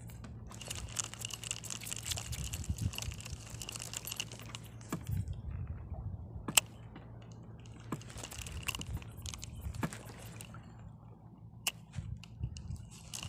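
Small Fugu Hikata 500 spinning reel being cranked in two spells, a thin whine with rapid clicking, with a few sharp single clicks in between. A low steady hum lies under it.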